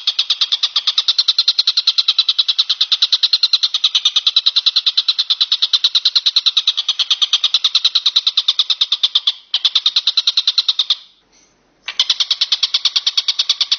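Walang kecek bush cricket stridulating in a loud, rapid, evenly pulsed trill of about seven or eight pulses a second, breaking off briefly twice near the end.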